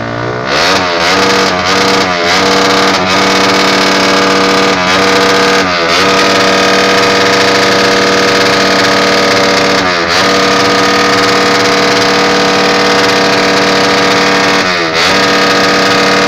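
Suzuki Raider motorcycle engine revved up to high rpm about half a second in and held there, loud and steady. The revs dip briefly and climb straight back several times.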